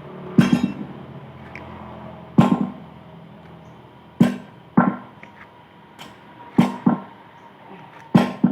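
Hammer blows on metal: about eight sharp strikes at irregular intervals, each ringing briefly.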